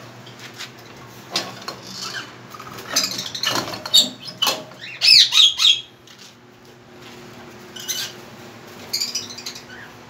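Caged parrots squawking: scattered shrill calls that rise and fall in pitch. The loudest is a run of about three screeches about five seconds in.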